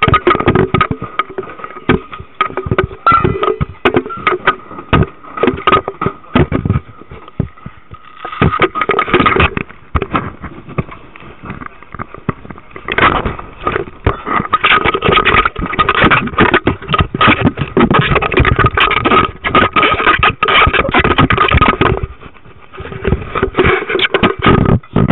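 Handling noise on a SeaLife camera: dense, irregular knocking, rubbing and scraping right at the camera, over a steady two-note hum.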